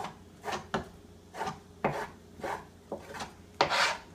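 The back of a knife blade scraping soft dumpling dough off a cutting board in short, quick strokes, about two a second, with a longer scrape near the end. Each stroke cuts off a small piece of galuska dough into the pot of boiling water.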